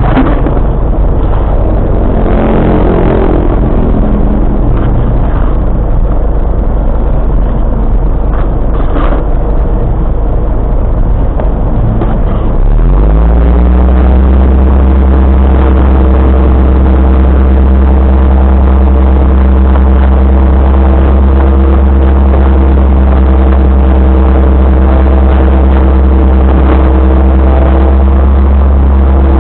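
Loud low rumble with scattered knocks, then about twelve seconds in an engine starts: its pitch rises briefly and settles into a steady run at constant speed.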